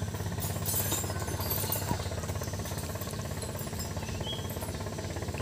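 Small engine mounted in a racing boat hull, running steadily with an even, rapid pulse.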